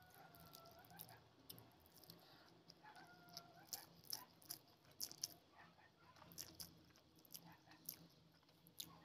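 Faint close-up eating sounds: fingers squishing and mixing rice with egg-curry gravy, and chewing with many small, sharp mouth clicks.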